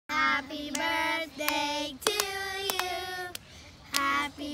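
Young girls singing together in held notes, with a short break about three and a half seconds in. A few sharp claps fall between the notes.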